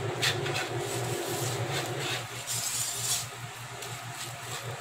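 Wire whisk stirring a thick yogurt-and-spice marinade in a non-stick pan, with short irregular scraping swishes as the wires drag through the paste and against the pan. A steady low hum runs underneath.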